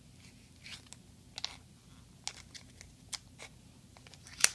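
Scissors cutting into a foil trading-card booster pack wrapper: a string of short, irregular snips and crinkles, the sharpest one near the end.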